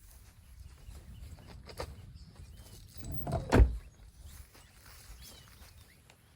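A single heavy thump about three and a half seconds in, from camping gear being packed up, over faint handling noise.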